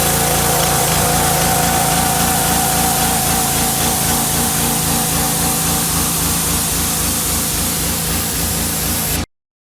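Pressure washer running: a steady engine with a loud hiss of high-pressure water spray. It cuts off suddenly near the end.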